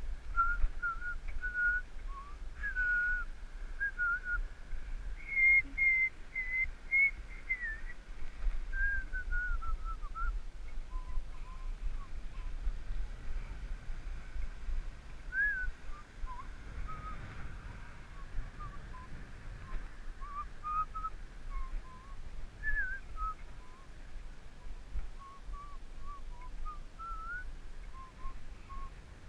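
A person whistling a meandering tune in short notes, with a low wind rumble on the microphone from the moving bicycle.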